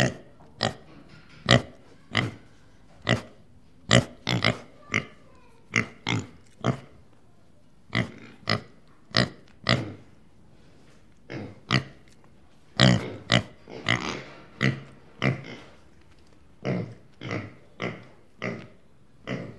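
Pig oinking: a long series of short grunts, about one or two a second, irregularly spaced with a couple of brief pauses.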